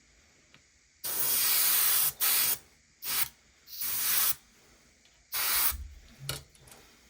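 Airbrush spraying black paint in about six short bursts of hiss, the longest about a second, as the trigger is pulled again and again with the paint cup almost empty, until it runs out.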